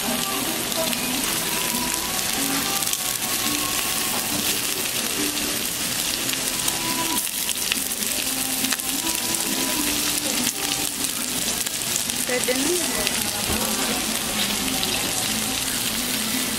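Samgyupsal (sliced pork belly) sizzling on a tabletop grill plate: a steady crackling hiss of fat frying.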